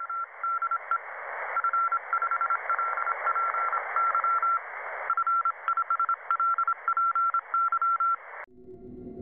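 Morse code: a single high beep keyed in short and long pulses over a hiss of radio static, thin and narrow-sounding like a shortwave receiver. It cuts off abruptly near the end.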